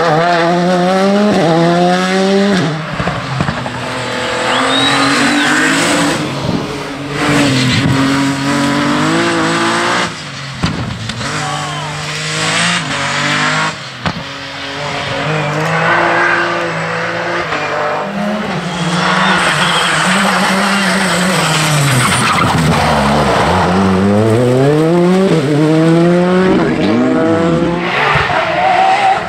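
Several rally cars driven hard one after another, each engine's pitch climbing under full throttle and dropping back at each gear change and under braking. A short squeal of tyres a few seconds in.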